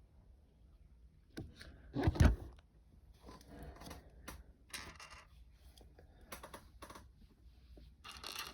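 Plastic Lego bricks being handled and pressed together: scattered small clicks and rustling, with one louder knock about two seconds in.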